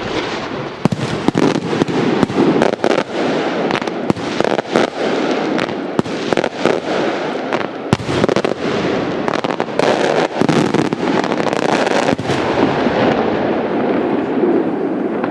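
Maltese beraq firework shells going off: a dense, continuous crackle of many sharp pops that starts suddenly and keeps up throughout.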